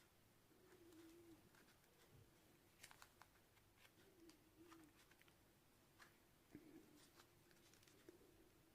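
Near silence: faint room tone with a few soft clicks and a faint, wavering low tone that comes and goes.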